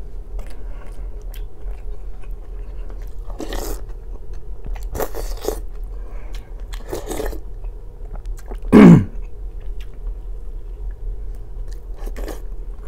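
A person chewing and biting black rye bread and borscht, with wet mouth clicks and several short noisy eating sounds. About nine seconds in there is one much louder short sound whose pitch falls.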